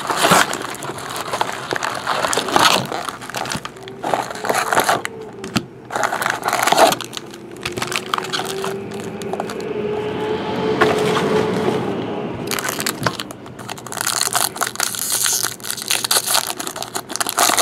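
Plastic shrink wrap crackling and crumpling as it is stripped off a cardboard card box and balled up in the hand, with foil-wrapped card packs rustling, and one pack being torn open near the end.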